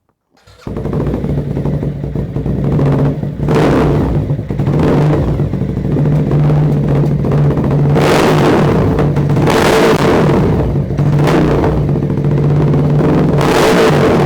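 Loud motorcycle engine running, with the throttle blipped about six times so the revs swell and fall back over a steady idle.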